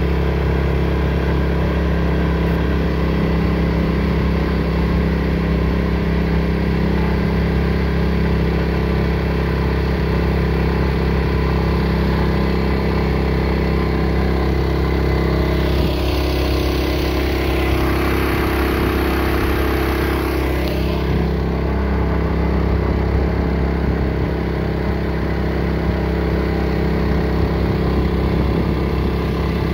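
Longtail boat motor running steadily at a constant speed, the boat underway. Midway through, a rushing hiss rises over it for about five seconds.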